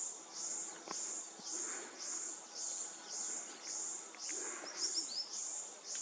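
Insects calling in an even rhythm: a high, hissing buzz pulsing about twice a second. A few short bird chirps come in about five seconds in.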